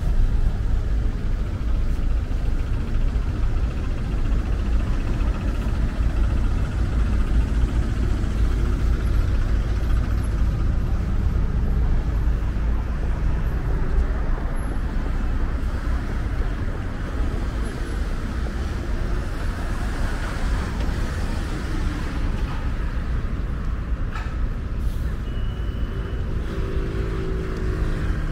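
Steady city street traffic: a continuous low rumble of cars and buses passing, with a brief high tone near the end.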